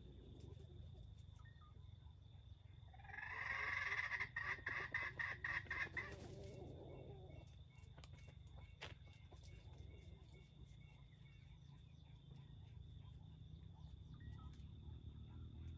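A chicken giving a rapid run of clucks, about five a second, for some three seconds before trailing off into lower, softer clucking.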